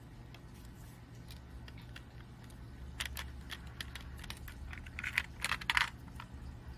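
Small plastic Lego pieces clicking and rattling against each other as they are handled, a scatter of light clicks that bunch together about three seconds in and again near the end, over a steady low hum.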